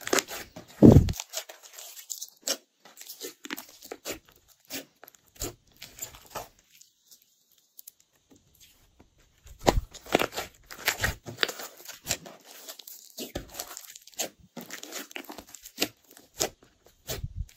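Glossy slime being squished, stretched and folded by hand, giving irregular crackles and pops, with a pause of about two seconds around the middle.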